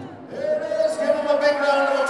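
After a brief lull, a voice holds one long, steady high note over crowd murmur, as the powwow song ends and the drum falls silent.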